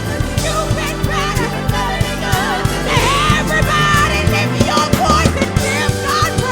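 Live worship band playing: drum kit keeping a steady beat under bass, guitar and keys, with a voice or lead line singing over it.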